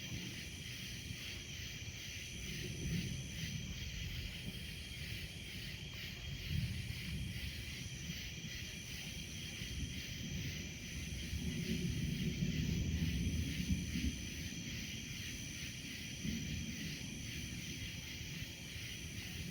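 Steady background hiss with a faint high thin tone and an uneven low rumble underneath; no distinct event.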